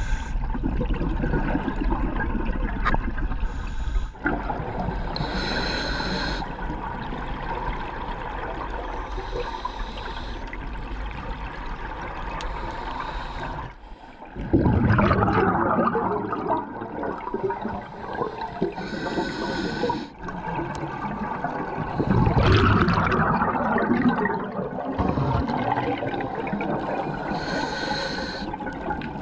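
Scuba regulator breathing heard underwater: short hissing inhales every few seconds and two louder bubbling surges of exhaled air, over a constant low underwater rumble.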